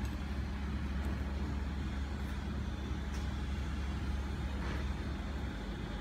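Steady low background rumble with a constant hum, and a few faint clicks from a hex key turning a screw inside the metal crimping head.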